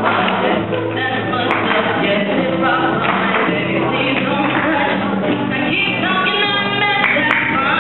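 A woman singing into a microphone to an acoustic guitar accompaniment, with held, sung notes over steady strumming.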